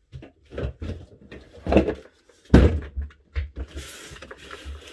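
A series of knocks and thumps, the loudest about two and a half seconds in, followed by a soft scraping hiss near the end.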